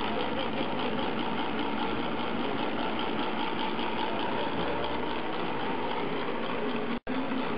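Small electric motor of a centrifugal painting machine running steadily, spinning its brush rotor at high speed with a dense, fast mechanical whir. The sound drops out for an instant near the end.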